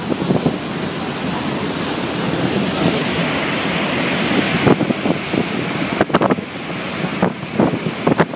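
Churning white wake water rushing and hissing behind the stern of the high-speed car catamaran ferry Max Mols under way. Wind buffets the microphone several times in the second half.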